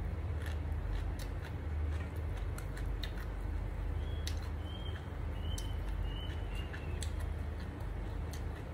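A person chewing a mouthful of rice and omelette close to the microphone: many small wet clicks and smacks over a steady low hum. A handful of short high chirps come in the middle.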